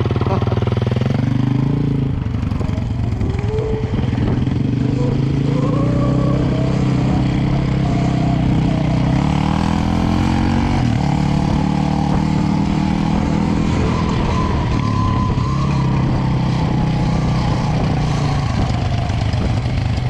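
Motorbike running steadily, with a higher whine whose pitch slowly rises and falls.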